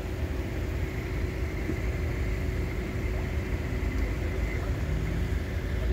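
A tram rolling slowly past over snow-covered track: a steady low rumble with a faint hum.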